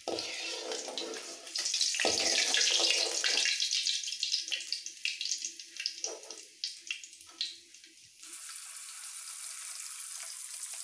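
Rohu fish pieces sizzling in hot oil in a kadhai, with crackling and the metal spatula clicking and scraping against the pan as the fried pieces are turned and lifted out. About eight seconds in, this gives way to an even, steady sizzle of a panful of fish frying.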